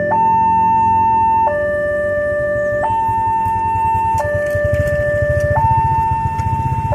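Level-crossing warning siren, newly fitted, sounding a two-tone hi-lo signal that switches between a higher and a lower tone about every second and a half. A low rhythmic rumble comes in about halfway through.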